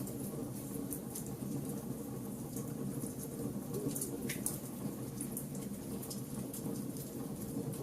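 Wood fire in a fireplace crackling, with many small sharp snaps and pops over a steady low rumble.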